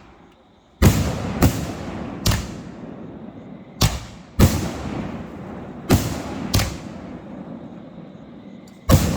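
Fireworks going off: eight sharp bangs over about nine seconds, several coming in quick pairs, each trailing off in a rumbling echo.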